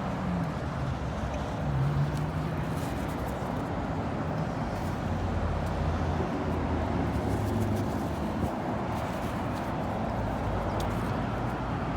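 Steady wind buffeting the microphone over the low hum of car engines in nearby traffic.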